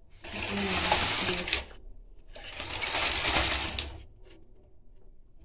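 Panda knitting machine carriage pushed across the needle bed and back, two clattering passes of about a second and a half each with a short pause between, knitting rows of a tuck-stitch pattern over the hand-selected needles.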